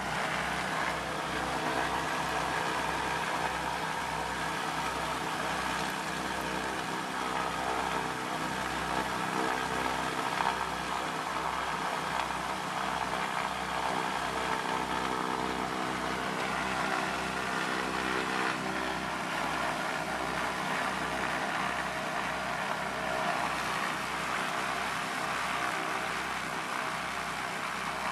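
The Cessna 310Q's two piston engines running steadily, heard from inside the cockpit, with a regular low pulsing about twice a second.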